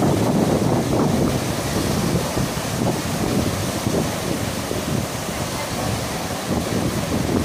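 Small waves breaking and washing up onto a sandy beach, with wind buffeting the microphone.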